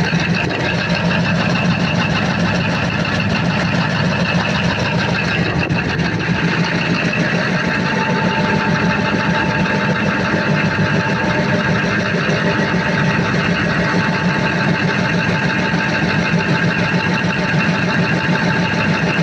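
Freshly overhauled Cummins KTA50 16-cylinder diesel engine idling steadily on its test run. A thin steady whine joins the engine sound about eight seconds in.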